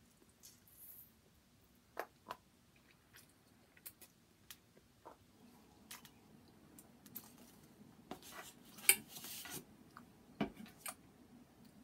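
A person eating spaghetti from a fork: quiet wet mouth sounds of slurping and chewing, with scattered small clicks and a louder burst of mouth noise about nine seconds in.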